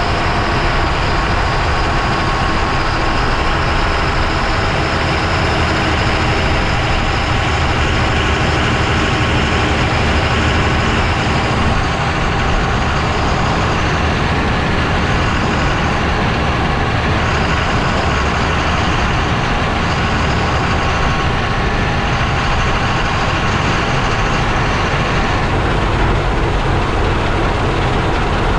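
Lorry on the move, heard from a camera mounted under its chassis by the front wheel: a loud, steady mix of engine and road noise.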